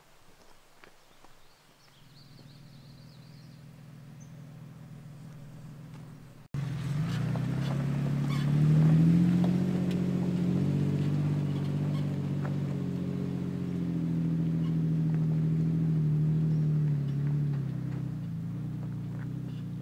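A vehicle engine running at low revs, its pitch rising and falling as it drives, with scattered light ticks and rattles. It is faint for the first six or so seconds, then cuts suddenly to a much louder stretch.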